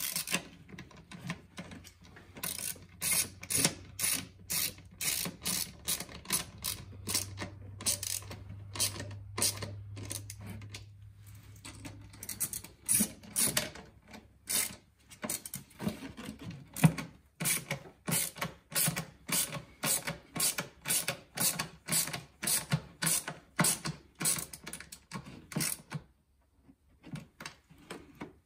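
Hand ratchet clicking through steady strokes, about two clicks a second in several runs, as it drives screws back into the plastic air filter housing cover. The clicking breaks off briefly near the end.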